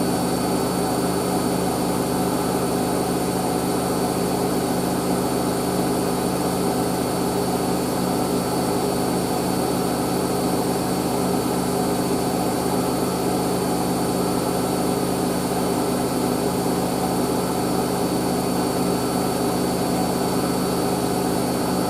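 Hoover SIX AAA160 front-loading washing machine spinning at high speed on a 1600 rpm spin: a steady hum with a faint high whine, holding at one speed.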